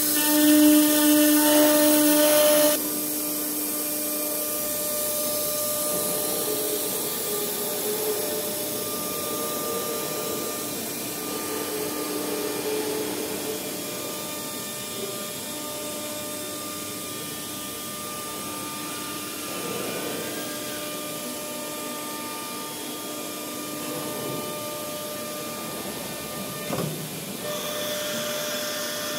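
Blue Elephant 1530 ATC CNC router's spindle whining as it carves a board, cutting off abruptly about three seconds in. Then quieter machine running as the gantry moves the spindle to the automatic tool-changer rack, with a sharp clack near the end and the spindle whine back just after.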